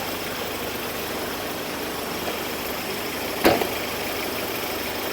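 Steady running noise of a vehicle engine, with one short, loud sound about three and a half seconds in.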